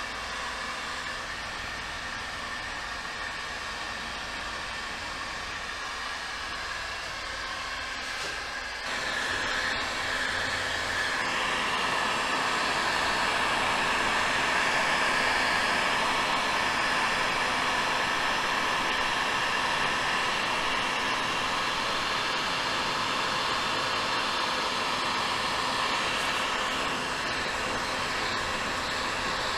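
Steady whir of a small electric blower running without a break, louder from about nine seconds in.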